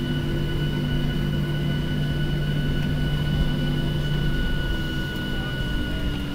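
Cabin noise of a Boeing 737-700 taxiing after landing: a steady rumble from its CFM56-7 engines at taxi power with a thin, steady whine over it. A low hum in the rumble drops out about four seconds in.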